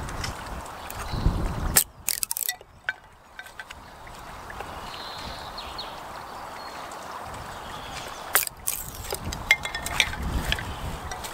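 Steady rushing of a woodland stream, with scattered sharp clicks and snaps and bursts of low rumble on the microphone near the start and again in the last few seconds.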